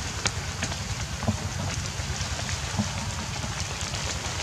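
Rain and drips falling on wet forest leaves: a steady hiss with scattered single drops striking close by, over a low rumble.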